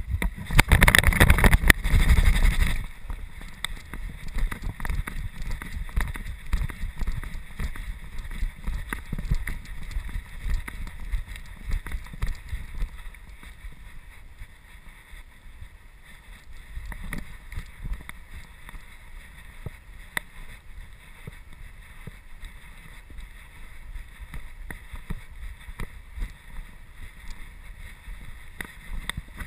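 Handling rumble from a GoPro camera harnessed to a golden retriever as the dog moves: a steady low rumble with many small irregular knocks and rubs from the mount and the dog's body. A loud rushing burst fills the first couple of seconds.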